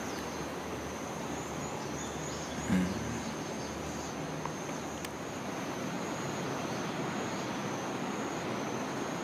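Steady high-pitched insect drone, likely distant cicadas, over an even outdoor background hiss, with one short soft knock about three seconds in.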